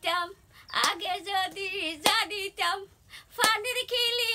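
A woman's voice in a rhythmic sing-song chant with long held notes, kept in time by a sharp clap about every second and a quarter.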